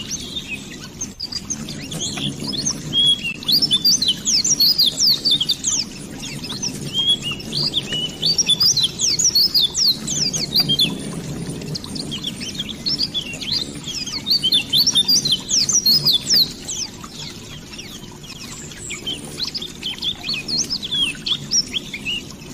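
Small birds chirping in quick runs of short, high, falling notes that come in bouts a few seconds long, over the steady rush of a flowing stream.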